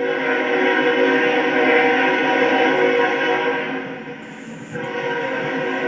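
Locomotive air horn sounding a long, steady chord, breaking off briefly about four seconds in and then sounding again.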